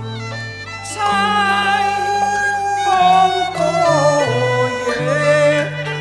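Cantonese opera ensemble music. A quick run of plucked-string notes gives way, about a second in, to a sliding, wavering melody on a Chinese bowed fiddle over held low notes.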